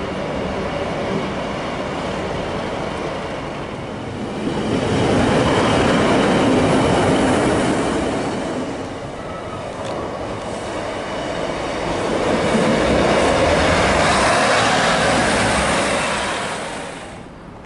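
Diesel multiple-unit passenger trains passing close by, engines running and wheels rumbling and clattering over the rails. The sound swells loudly twice, about five to eight seconds in and again about twelve to sixteen seconds in, then drops suddenly near the end.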